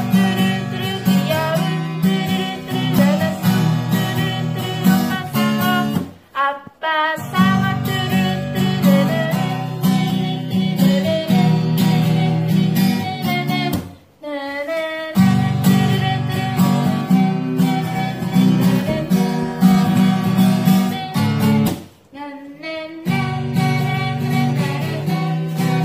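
Acoustic guitar strummed in a steady rhythm while a woman sings along. The playing breaks off briefly three times, about a third, halfway and four-fifths of the way through.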